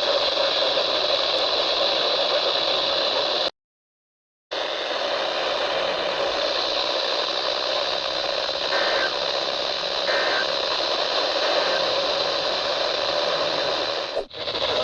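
Radio static: a steady hiss from a weather radio receiver on a weak signal. It cuts out to dead silence for about a second a few seconds in, then resumes.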